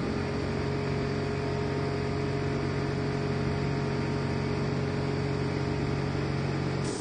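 Steady mechanical hum with a low drone from a missile impact test rig's air cannon equipment as the cannon is readied to fire. It starts abruptly and cuts off suddenly about seven seconds later.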